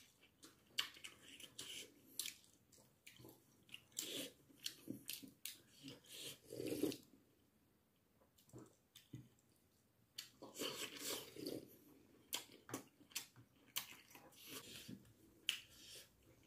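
Close-up eating sounds of braised chicken: wet chewing and lip smacking in irregular short clicks, with a quieter pause of a few seconds about halfway through.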